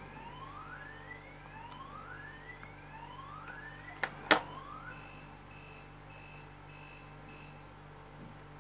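Faint car alarm: a series of rising whoops, then five short high beeps about half a second apart. A sharp click a little after four seconds in, as scissors are set down on the table.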